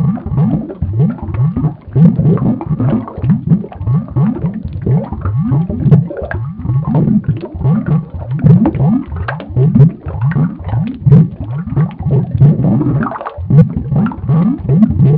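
Cartoon body-inflation sound effect: a dense, loud run of short, low, rising creaks and gurgles, several a second, like stretching rubber and bubbling liquid swelling something up, with a brief break about 13 seconds in.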